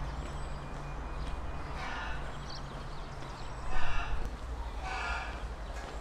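Footsteps walking on paving stones over a steady low outdoor rumble, with three short pitched animal calls about two, four and five seconds in and faint high chirps.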